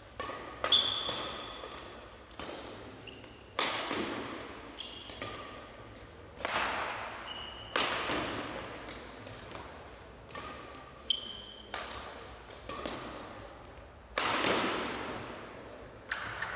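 Badminton racket strikes on the shuttlecock during a long rally, one every one to three seconds, each sharp hit echoing in the hall. Short high squeaks of players' shoes on the court mat come between the hits.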